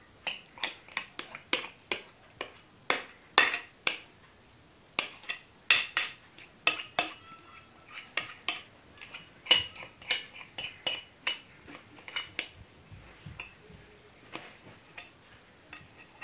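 Irregular clinks and knocks of a metal spoon against a glass mixing bowl, some briefly ringing, as sticky risen bread dough is scraped out into a metal baking tray.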